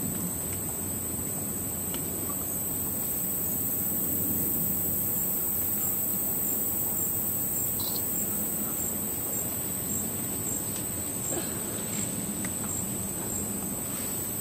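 Insect chorus droning steadily at a high pitch over a low background rumble, with a few faint clicks.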